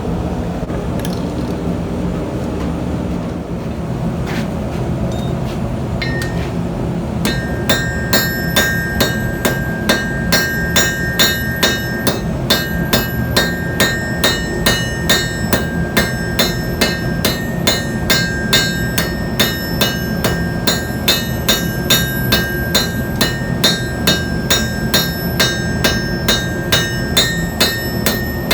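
Hammer blows on a steel anvil forging a hand-made nail: steady, evenly spaced ringing strikes, about two to three a second, starting about seven seconds in. Before the strikes start there is a steady roar.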